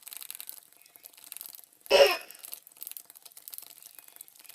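Faint wet crackling and rattling of jelly slime being stirred with water in a plastic tub. About two seconds in, a brief loud vocal sound cuts across it.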